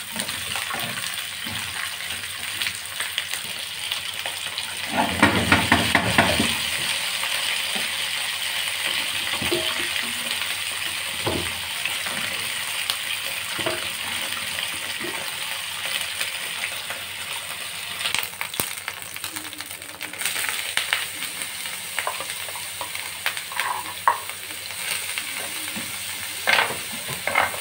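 Hollowed zucchini frying lightly in oil in a grill pan, sizzling steadily, with clicks and scrapes of a plastic slotted spoon turning them. The sound gets louder about five seconds in, and near the end chopped onion is frying in the same pan, with more clicks of the spoon against the pan.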